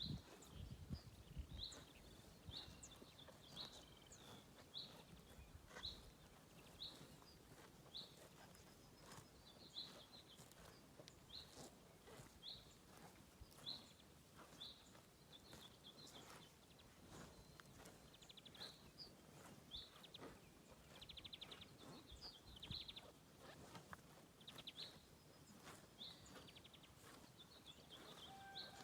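Faint sound of cows grazing: many short tearing and chewing clicks as the grass is pulled and eaten. A small bird chirps over it, short chirps repeating about once a second.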